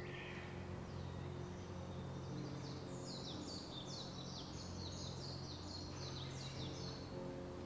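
A small songbird singing a quick run of about a dozen sharply falling high notes, starting a couple of seconds in and ending near the end, over a steady low hum.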